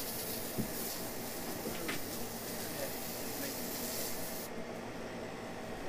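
A steady hiss of pressurised spray in the engine bay, cutting off about four and a half seconds in, with a faint knock or two from the work on the engine.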